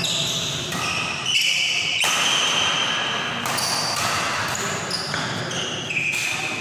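Badminton rally in an indoor hall: rackets striking the shuttlecock several times, with voices of players or onlookers.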